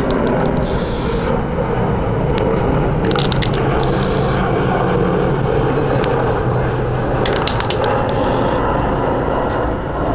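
Aerosol spray paint can giving short hisses, three bursts of about half a second a few seconds apart, spraying white paint as speckled stars. Quick clicking rattles come just before the second and third bursts, over a steady loud background noise.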